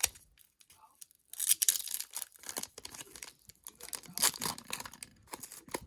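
Foil wrapper of a Pokémon trading card booster pack being torn open and crinkled in several noisy rips, loudest about a second and a half in and again about four seconds in.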